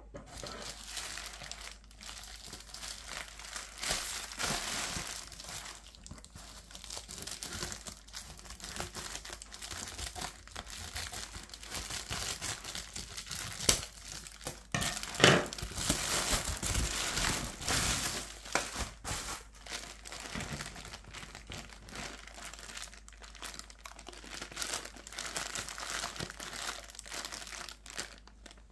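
Plastic bubble mailer crinkling and crackling as it is handled and cut open with scissors, with a couple of sharp snips near the middle, then a clear plastic bag of pens rustling.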